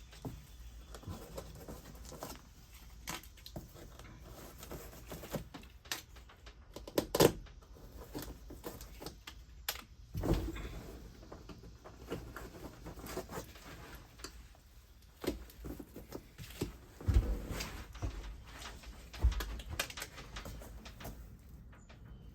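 Scattered light clicks, knocks and handling noise from hands working in a pickup truck bed while fitting Velcro adhesive pieces. Sharper knocks come about 7, 10, 17 and 19 seconds in.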